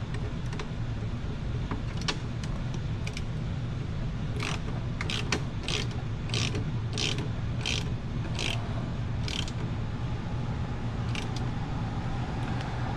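Ratchet wrench clicking as a shock mounting bolt is tightened, in a run of short clicking strokes about every half second through the middle, with a few single clicks elsewhere. A steady low hum runs underneath.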